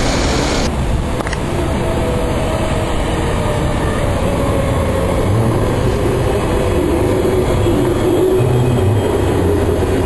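Electric rail vehicle running: a steady rumble with a faint motor whine that slowly drops in pitch. The high hiss falls away suddenly about a second in, followed by a single click.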